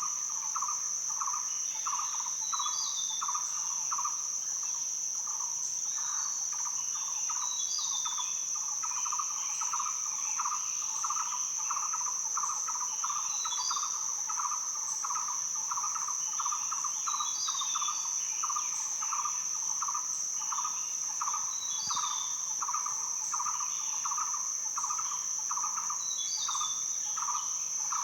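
Outdoor chorus of birds and insects: a steady, high, unbroken insect drone, a lower call pulsing about twice a second, and a bird repeating a short falling chirp every couple of seconds.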